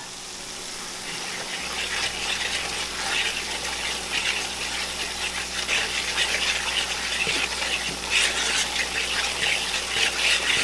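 Hot grease sizzling and crackling in a skillet as flour and onions are stirred in with a fork, the roux browning for a gravy. The sizzle grows slowly louder.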